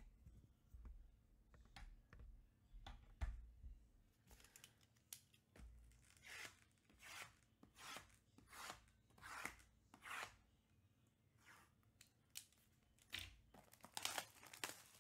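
Plastic shrink-wrap on trading card hobby boxes being slit and torn open by hand: a row of faint, short tearing strokes about three-quarters of a second apart, then a few sharper rips near the end.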